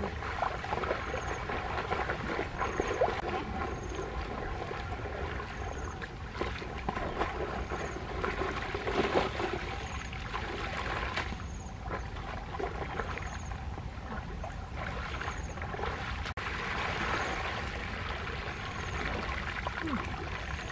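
Water sloshing and trickling as people wade in shallow water and scoop with bamboo baskets, water running out of the baskets as they are lifted, in uneven swells.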